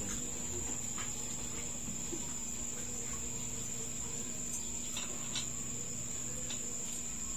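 Insects trilling in one steady, unbroken high tone, over a low steady hum, with a few faint clicks.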